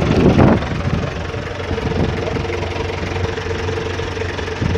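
A vehicle engine idling steadily, a low even hum with a steady higher tone over it, after a short louder rush right at the start.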